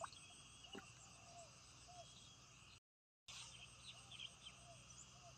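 Faint, steady chirring of insects, with a few short, low chirping calls from small animals. The sound drops out entirely for about half a second around the middle.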